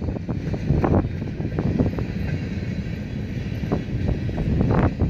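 Freight cars of a passing mixed freight train rolling by: a steady rumble of wheels on rail with many irregular sharp knocks and clanks.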